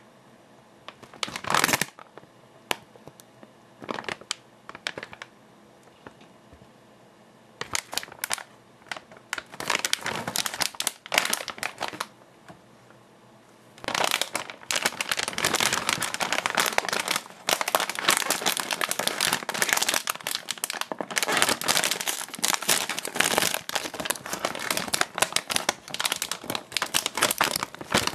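Plastic snack bag crinkling as it is handled and turned over: scattered crackles at first, then continuous crinkling from about halfway through.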